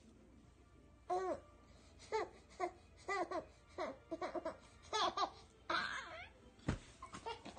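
Baby laughing and babbling in short bursts of high giggles. There is a single sharp click a little before the end.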